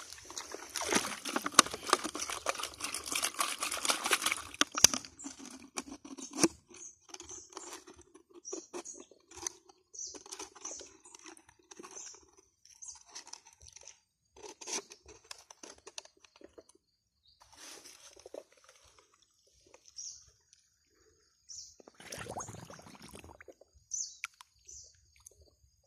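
Hands working a plastic bottle fish trap in wet mud and shallow river water: a few seconds of crunching, crackling handling noise at the start and a wet swish near the end, with scattered clicks. Short high chirps come and go throughout.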